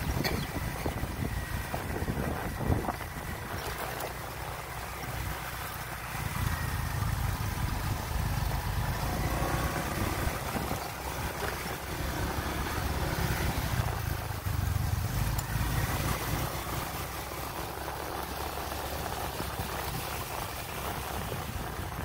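Motorbike running along a rough dirt road, heard from on board, with wind buffeting the microphone; the low rumble swells and eases as the bike rides over the ruts, and one sharp knock comes about three seconds in.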